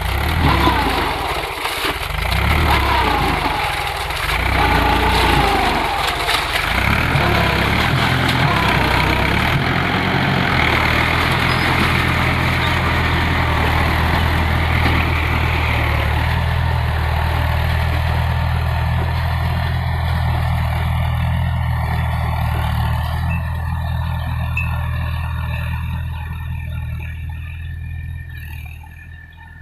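Mahindra 415 DI tractor's four-cylinder diesel engine running steadily while ploughing. It throbs about every two seconds at first, then grows much fainter near the end.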